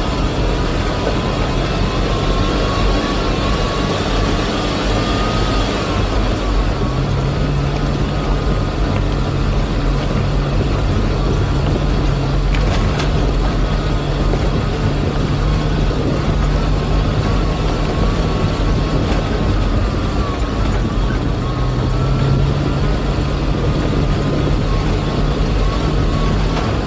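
A vehicle's engine running steadily while driving over a rough gravel track, with a continuous rush of road and tyre noise and a low hum whose pitch shifts a little with speed.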